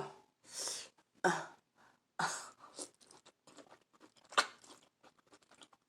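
Close-miked eating sounds from a person eating a seafood boil with her hands: a few short, sharp mouth noises, with small clicks and crunches in between.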